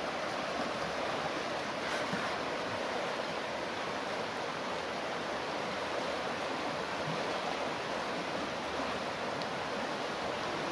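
Shallow, fast river rushing over rocks: a steady rush of water.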